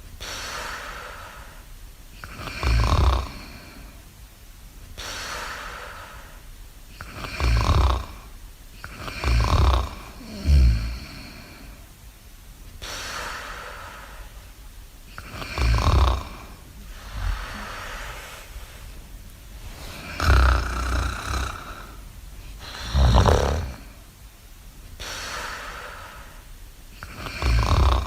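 Slow, repeated snoring: loud snores every few seconds, some coming in close pairs, with softer breathy exhales between them.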